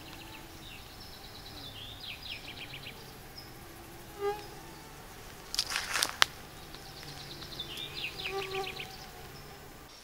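Forest ambience: insects buzzing in a low steady drone while a songbird sings the same short trilled phrase twice, with a brief burst of noise, the loudest sound here, about six seconds in.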